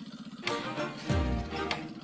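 Background music with a steady pulse and a deep bass hit about a second in.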